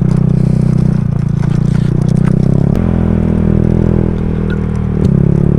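Motorcycle engine running at low speed over a rough, cracked concrete road, with scattered light knocks and rattles from the bumps. The engine note changes about halfway through and again near the end.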